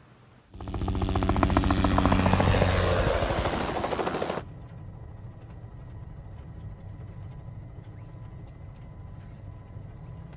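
Helicopter in flight: the rotor runs loudly with a rapid, even blade chop for about four seconds, then cuts abruptly to the quieter steady hum heard inside the cabin, with a faint high whine.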